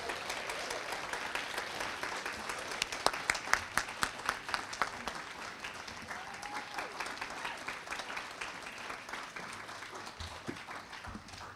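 Audience applauding, with sharp individual claps standing out a few seconds in, then slowly dying down.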